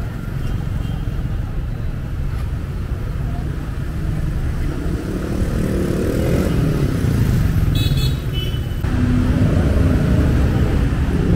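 City street traffic of motor scooters and cars passing close by, a steady rumble with engines rising and falling in pitch as bikes go past, twice. A short high horn toot sounds about eight seconds in.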